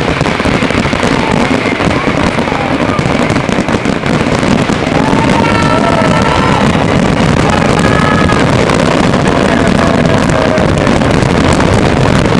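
Large fireworks display: a dense, continuous crackle of bursting shells that grows louder about five seconds in.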